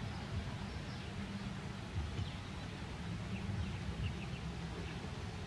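Outdoor background: a steady low rumble, with a few faint high chirps, like birds, around the middle.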